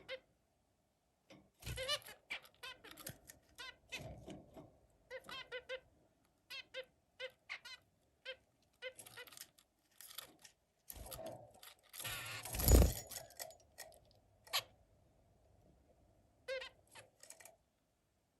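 Zebra finches calling and singing in many short, quick pitched notes, coming in runs with brief gaps. About 12 to 13 seconds in there is a louder burst of noise.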